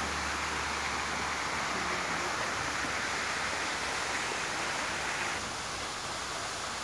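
Steady rushing noise, strongest in the middle and upper range, that drops a little in level about five seconds in.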